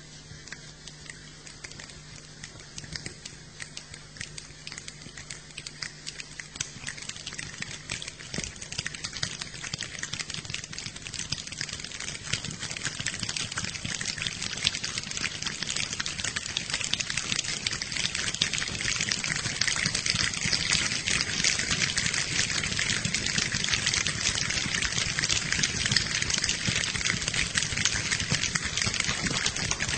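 A rainstorm imitated by a large choir with their hands: a dense patter of finger snaps that grows steadily thicker and louder, like rain building.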